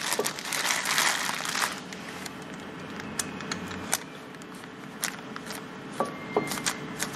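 Plastic bag crinkling as it is handled around a new brake disc. The rustling dies down after about a second and a half, leaving a few light clicks and short clinks.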